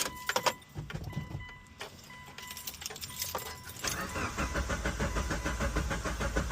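Keys jingling and clicking, then from about four seconds in the Mitsubishi Lancer Evolution VIII's engine cranking on the starter in a fast, even rhythm without firing: the car's no-start.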